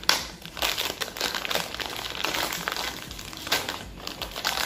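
Thin clear plastic packaging pouch crinkling and crackling as it is pulled open by hand, with a louder crackle just after the start and another about three and a half seconds in.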